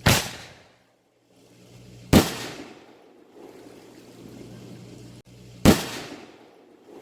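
Three loud firework bangs, the second about two seconds after the first and the third about three and a half seconds later, each sharp and dying away over about half a second.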